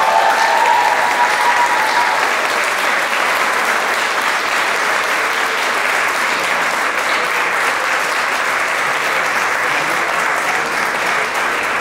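Crowd clapping and cheering, with a rising whoop held for about two seconds at the start, then steady applause.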